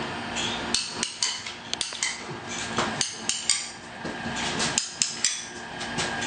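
Manual caulking gun clicking as its trigger is squeezed and released, putting small dabs of silicone on the back of a shower wall panel. It makes about a dozen sharp clicks at uneven intervals.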